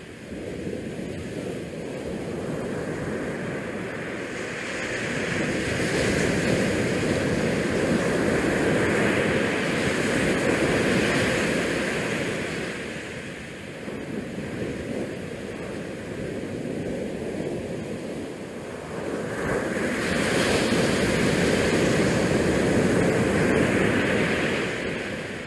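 Wind buffeting the action-camera microphone as a dense rushing noise that swells and eases in long gusts, loudest twice for several seconds at a time.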